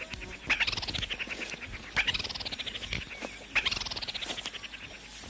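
Three loud animal calls about a second and a half apart, each a rapid rattling trill that starts sharply and fades away over about a second.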